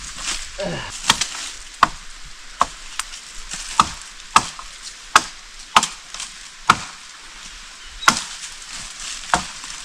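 A blade chopping into wood: about a dozen sharp blows, roughly one a second, with a short pause past the middle.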